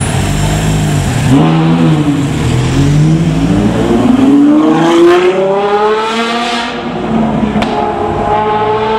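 Ferrari F12's V12 engine with a Novitec aftermarket exhaust, loud and revving as the car pulls away. There is a short blip about a second and a half in, then the pitch climbs for about three seconds before dropping back to a lower, steadier note.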